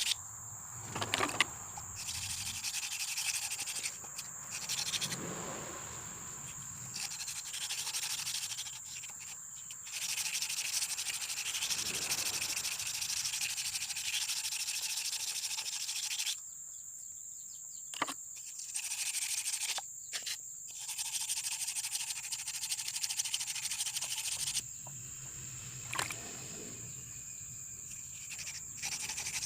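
A steel knife blade being worked by hand with an abrasive, giving raspy scraping strokes in runs of a few seconds with short pauses between them.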